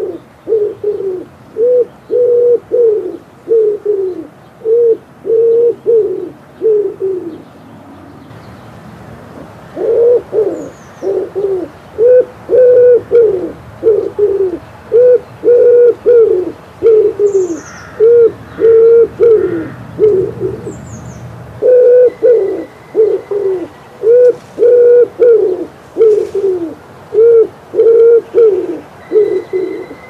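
Male common wood pigeon cooing: repeated phrases of low hoots, with a break of about two seconds a quarter of the way in. A few faint high chirps from small birds sound behind it.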